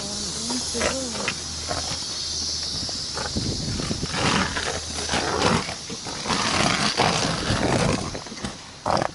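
Footsteps scuffing on pavement and repeated knocks of bags and handling on a hand-carried camera, over a high hiss; a low steady hum runs through the first half and fades out.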